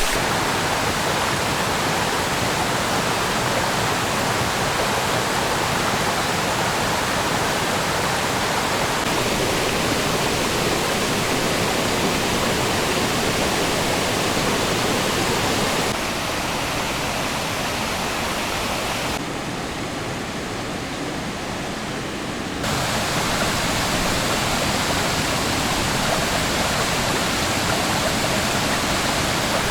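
Steady rushing of a creek's flowing water, an even noise with no distinct events. It drops a little in level about halfway through and again briefly, then comes back up.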